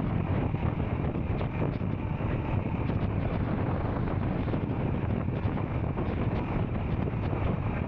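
Royal Enfield Scram 440's single-cylinder engine running steadily under way, with wind buffeting the microphone.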